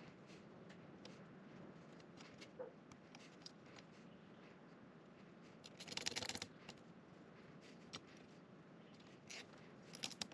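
Faint handling sounds of plastic cable ties being fitted around a laser engraver's frame and cables: scattered small clicks and rustles, with a short ratcheting rasp about six seconds in as a tie is pulled tight, and a few sharper clicks near the end.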